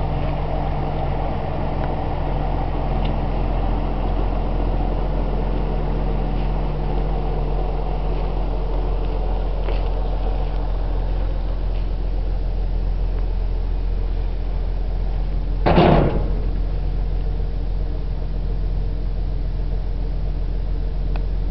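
Heavy farm diesel engine idling with a steady low hum. A single brief loud burst of noise comes about three-quarters of the way through.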